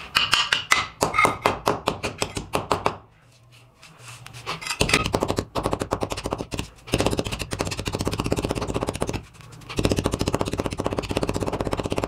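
Steel sledgehammer head pounding a broken ceramic tile on a concrete floor: rapid, repeated blows crushing it into chips and powder, with a pause about three seconds in.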